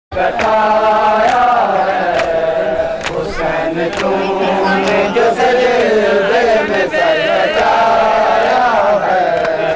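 Male voices chanting a Shia mourning lament (nauha), sung with sliding pitch, over mourners' chest-beating (matam), sharp strikes landing in a steady beat about once a second.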